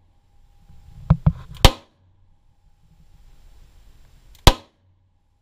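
Two shots from a Charter Arms Off Duty .38 Special snub-nosed revolver firing light-recoil 90-grain Hornady Critical Defense Lite rounds, about three seconds apart. Each is a single sharp report. Two shorter, sharp cracks come just before the first shot.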